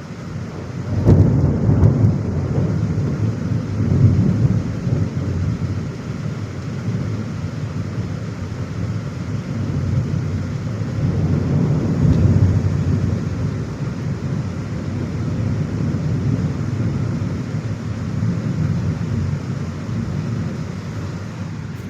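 Thunder rolling over steady rain, with a sudden loud peal about a second in and further swells of rumbling later on.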